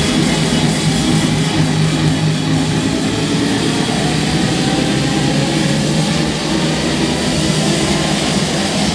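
Loud electronic dance music from a club sound system during a live DJ set: a steady, dense droning passage.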